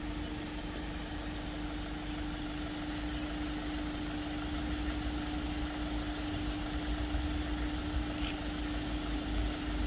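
Parked light truck's engine idling, a steady even hum with a low rumble underneath.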